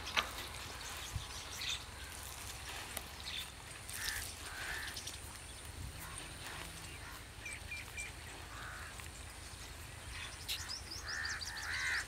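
Quiet rural outdoor ambience with a low steady rumble and scattered bird calls; a crow caws a couple of times near the end.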